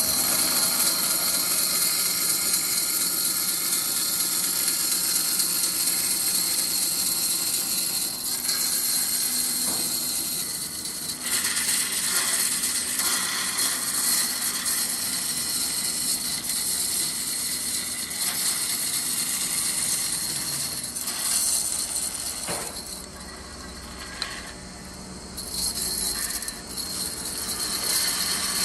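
Power tool working wood, a steady high hiss that eases off about a third of the way in and again near the end before picking back up.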